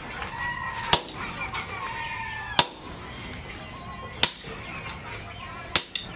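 Hammer blows on red-hot leaf-spring steel on a steel post anvil: four sharp strikes about a second and a half apart, the last a quick double hit.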